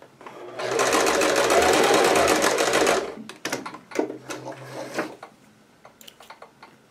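Domestic sewing machine sewing a straight stitch, running steadily for about two seconds with a fast needle rhythm, then stopping. A few light clicks and rustles follow.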